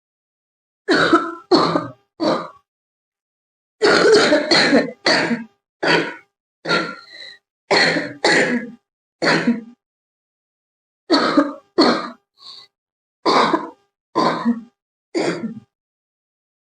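A girl coughing repeatedly: short, sharp coughs in three bouts, three at first, then a long run of about nine, then about six more, with silence in between.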